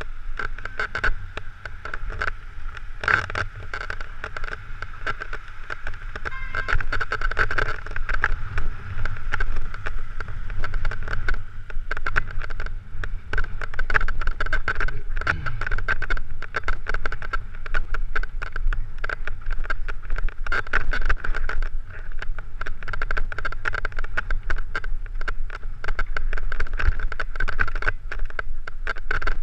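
Mountain bike ride heard from a helmet-mounted camera: continuous rapid rattling and clatter as the bike runs over a rough, stony trail, over a steady rumble of wind on the microphone. A sharper knock about three seconds in.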